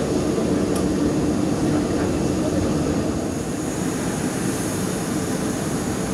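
Steady drone of an Airbus A319 parked on stand before departure, with a constant low hum and a faint high whine; it eases slightly about halfway through.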